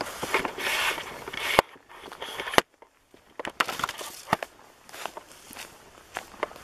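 Footsteps crunching irregularly on rough ground, with two sharp clicks about a second apart near the middle followed by a brief pause.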